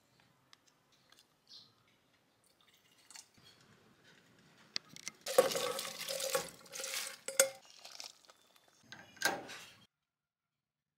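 Shredded cabbage tipped from a stainless-steel bowl into a pot of fish soup: a rustling, clattering rush of leaves with sharp clinks of metal on metal, lasting about three seconds. It is followed by a second, shorter burst.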